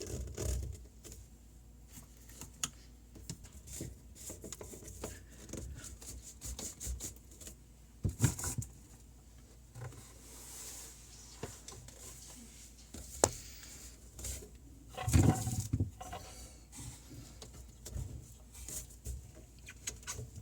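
Intermittent clunks, scrapes and clicks of hands and a tool working a drain pipe connection loose under a sink, with louder knocks about 8 and 15 seconds in. Water patters into a drain pan below.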